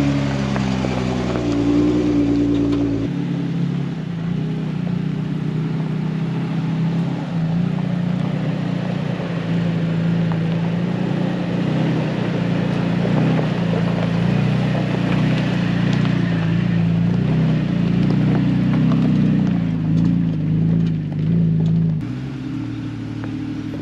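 Off-road 4x4 engines running at low speed as the vehicles crawl along a rough dirt trail; the engine note shifts about three seconds in and again near the end.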